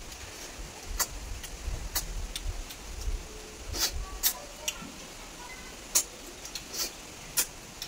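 Irregular sharp clicks and clinks of cooked snail shells against a steel plate as they are picked through by hand.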